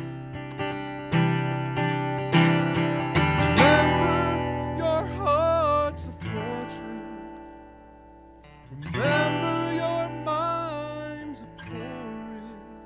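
Live band music: acoustic guitar strumming, with a wavering, sliding melody line over it in two phrases, the first a few seconds in and the second about two-thirds through, and quieter passages between them and near the end.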